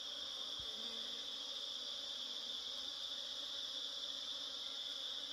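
A steady, high-pitched insect chorus drones without a break.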